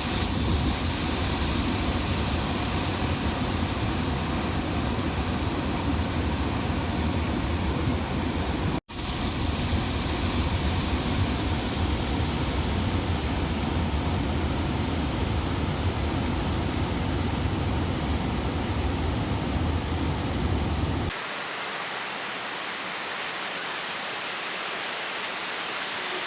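Steady roar of rushing floodwater released through the open gates of a dam, with a deep low rumble. It cuts out briefly about nine seconds in. After about twenty seconds the rumble drops away, leaving a quieter rushing hiss.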